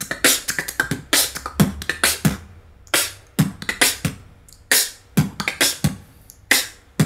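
Human beatboxing: a mouth kick drum 'b' alternating with quick 't-k' tongue rolls, the TK technique, played as a short repeating beat. The strokes are sharp and clicky, with a few brief pauses between phrases.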